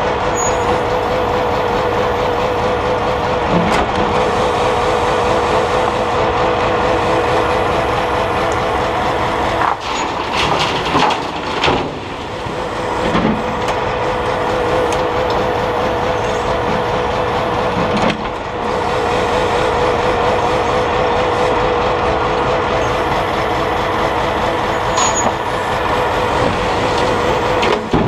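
Grab lorry's engine and hydraulic crane running steadily under load, with a wavering whine through the steady noise. A few thuds and clatters as the grab releases soil and rubble into the steel tipper body, most about halfway through.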